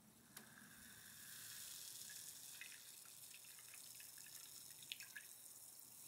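A carbonated drink poured into a stemmed glass and fizzing, a faint hiss of bubbles with small scattered crackles, after a light click near the start.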